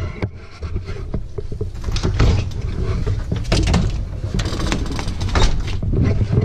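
Camera handling noise: the microphone rubbing and knocking against clothing as the camera is carried, a heavy low rumble broken by irregular scrapes and bumps.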